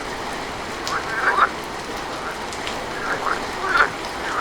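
Steady rain falling, with short rising animal calls cutting through it a few at a time: about a second in, again around three to four seconds in, and once at the end.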